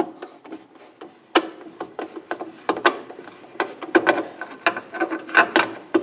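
Handling noise: irregular clicks, taps and rubbing, several a second, most of them in the second half.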